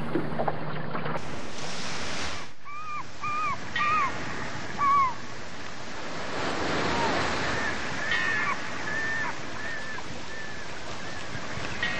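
Steady wind rushing over the microphone, swelling partway through. Over it come about four short rising-and-falling calls a few seconds in, and later a slowing run of short even high notes.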